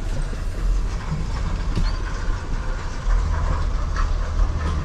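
Low, steady rumble of a truck's engine and tyres as it rolls slowly, with a few faint rattles and clicks.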